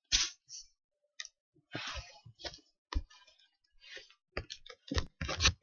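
Irregular clicks and knocks with a few short rustles, the handling noise of a laptop webcam being picked up and moved, loudest near the end.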